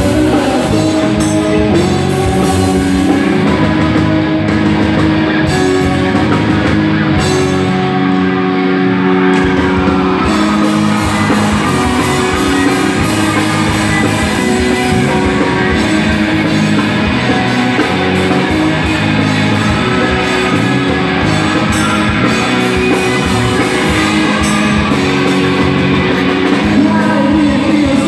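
Live rock band playing a worship song: electric guitars, bass, keyboard and drum kit, with a vocalist singing over them.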